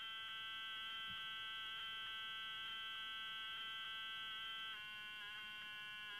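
Automatic Electric step-by-step mechanical howler sounding through a telephone off the hook: a steady howl of several high tones at once, with faint clicks, that shifts down a little in pitch about three-quarters of the way in. It is the off-hook warning that tells a subscriber the receiver has been left off.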